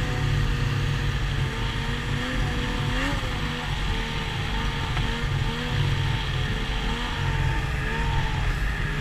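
Yamaha SX Viper 700 triple snowmobile's two-stroke three-cylinder engine running at a steady cruise, heard from the rider's helmet camera. Its pitch wavers slightly, with a short rise about three seconds in.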